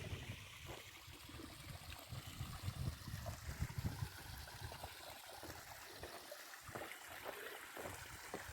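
Small stream of water trickling, with irregular low thumps throughout.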